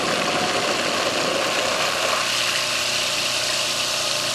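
Electric food processor running steadily, its motor and blade blending a thick pumpkin-and-silken-tofu pie filling.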